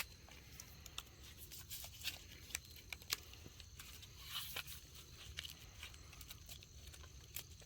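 Faint rustling and scattered light clicks of rope being passed between and drawn around wooden sticks, making frapping turns on a lashing.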